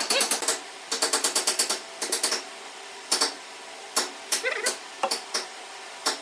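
A woodworking tool tapping sharply and quickly, in runs of about nine taps a second during the first two seconds, then in single knocks and short clusters, over a faint steady hum.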